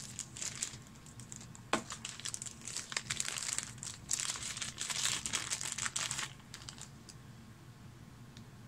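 Clear plastic bag crinkling as it is handled, in rustling bursts with a few sharp ticks, quieting after about six seconds.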